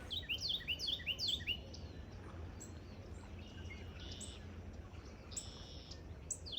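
Birds chirping: quick runs of short down-slurred notes in the first second and a half and again at the end, with a few buzzy high calls in between, over a steady low rumble.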